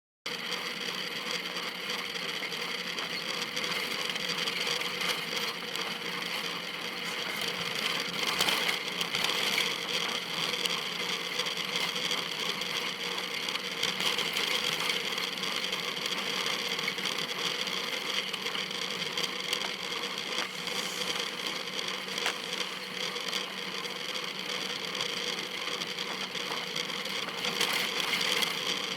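A car horn honks several times behind a cyclist, beginning about seven seconds in: a frustrated driver honking at the cyclist to move over. A steady hum runs underneath.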